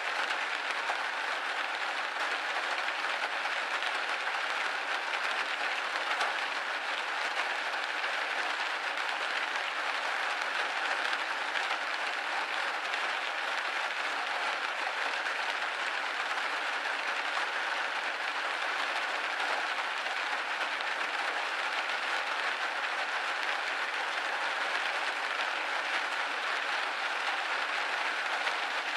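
Steady rain pattering on a window pane: a dense, even hiss of drops with no bass, holding the same level throughout.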